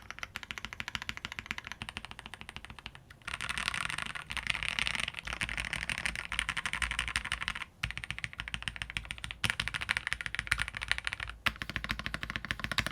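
Fast typing on a Phase One 65% mechanical keyboard with Gateron Ink Black linear switches, DSA keycaps and a polycarbonate plate: a steady stream of keystroke clacks, busiest from about three seconds in to about seven and a half, with brief pauses around those points. The board has a fairly deep tone.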